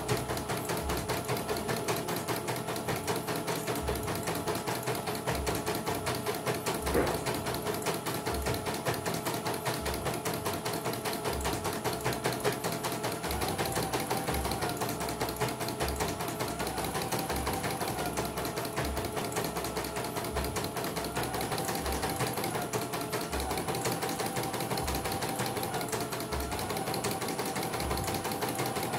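CNY portable computerized embroidery machine, housing off, stitching steadily at speed: a fast, even needle-and-hook rattle.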